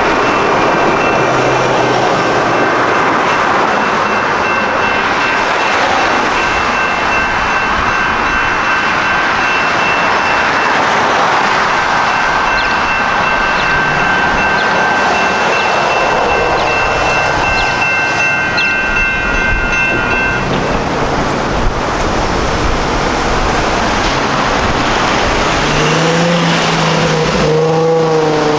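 Grade-crossing warning bells ring steadily while a light rail train rumbles past. The bells stop about 20 seconds in. Road traffic then starts up again, with a vehicle accelerating near the end.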